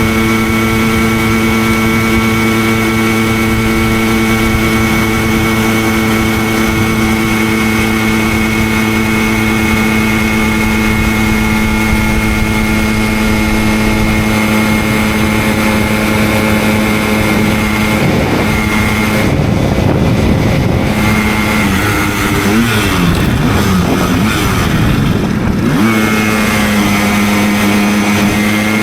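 Simson moped's 50 cc single-cylinder two-stroke engine running at a steady cruising pitch. About 18 seconds in, the pitch drops and wavers up and down for several seconds, then settles back to a steady tone.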